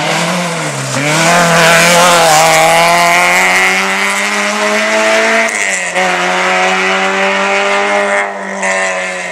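A rally car's engine revving hard as the car takes a corner and accelerates away. The pitch dips briefly about a second in, climbs for several seconds, drops with an upshift a little past halfway, then holds and fades toward the end.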